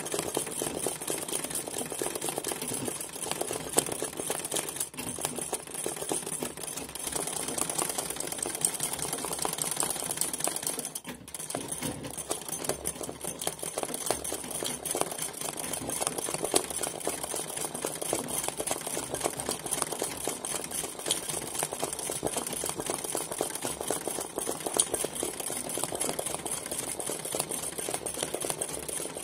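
Domestic straight-stitch sewing machine stitching rapidly and steadily in free-motion embroidery, the needle packing satin stitches into a hooped leaf design. It stops briefly about eleven seconds in, then carries on.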